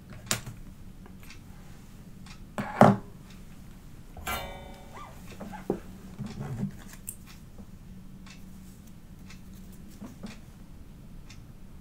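Tools being handled on a bench during hand soldering: a few scattered knocks and clicks as the flux pen is put down and the soldering iron is picked up, the loudest about three seconds in, over a steady low hum.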